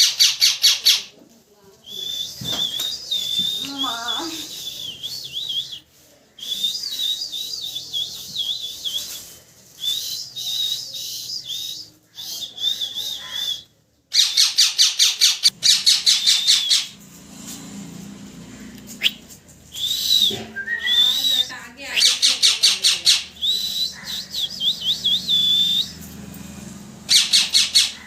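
Parrot chirping: runs of rapid, repeated high chirps alternating with warbling, whistle-like notes, broken off abruptly a few times.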